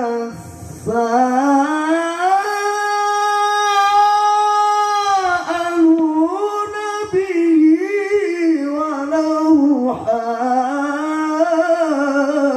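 A male qari reciting the Quran in melodic tilawah style through a microphone and a dangdut sound system. He draws out long ornamented notes with wavering pitch, pausing briefly for breath about half a second in and again at about ten seconds.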